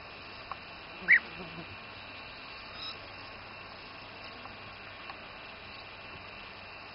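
European bee-eater giving one short, loud call about a second in, over a steady background hiss.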